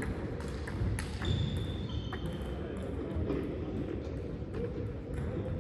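Table tennis ball clicking off paddles and the table in an irregular rally, over the low murmur of a sports hall.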